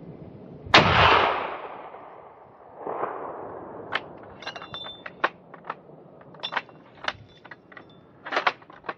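A single gunshot from a hunting gun about a second in, its report echoing off the slopes and dying away over about a second, with a fainter rumble of echo about two seconds later. Near the end comes a string of short, sharp clicks and knocks.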